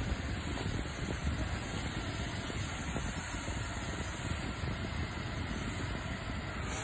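Steady low rumble of a car's engine and road noise heard from inside the cabin, with a faint hiss.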